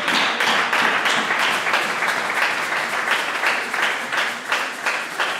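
Congregation applauding, many hands clapping together as a clap of praise, thinning slightly near the end.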